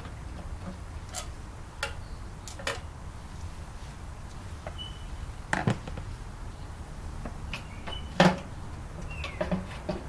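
Scattered clicks and knocks of tools and metal parts being handled while a microwave oven is taken apart, the two loudest knocks about halfway and two-thirds through, with a couple of brief high squeaks.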